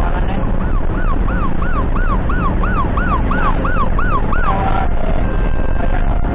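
Ambulance siren on a fast yelp, its pitch rising and falling about three times a second, then changing about four and a half seconds in to steady tones that step between pitches. The ambulance's engine and road noise rumble underneath throughout.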